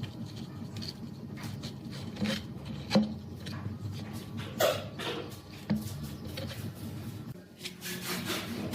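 Irregular rubbing and scraping strokes over a steady low hum, with a sharp knock about three seconds in.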